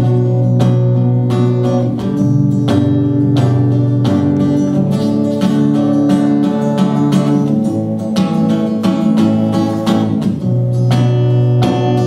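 Acoustic guitar strummed in a steady rhythm, chords ringing under each quick stroke, with no singing.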